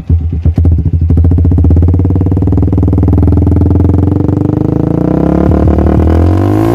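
Yamaha Vixion Advance's 150 cc single-cylinder four-stroke engine revved hard through an aftermarket Akrapovic-branded slip-on muffler. After a choppy first second it is held at high revs, its pitch creeping up, then dropping back near the end. Very loud.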